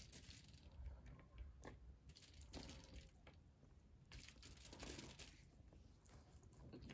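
Faint, soft squishing and scattered clicks of fingers mixing biryani rice on a plate, with quiet chewing.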